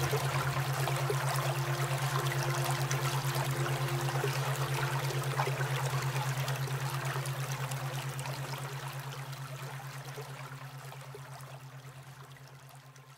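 Recorded stream of running water over a low steady hum that pulses rapidly, an alpha-frequency tone laid under relaxation audio. It all fades out gradually over the last few seconds.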